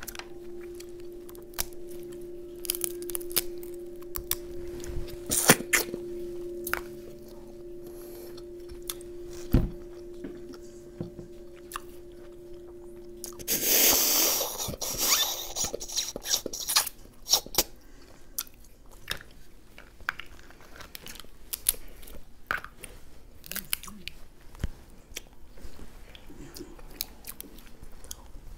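Snow crab leg shells cracking and snapping by hand, with close-up chewing, and a long slurp about halfway through as meat is sucked off the fingers. A steady low hum under the first half cuts off just before the slurp.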